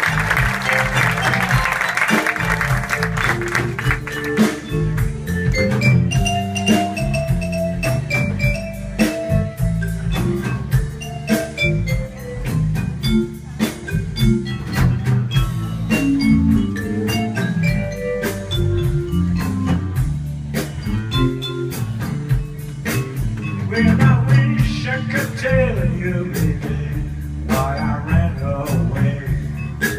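Live blues band playing: electric bass, drum kit and keyboards. Applause fades out over the first few seconds as the music carries on.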